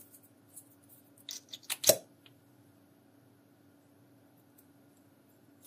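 Liquid lipstick tube being opened: a few small clicks and then a sharp pop about two seconds in as the cap and applicator wand pull free. Another quick click comes at the very end.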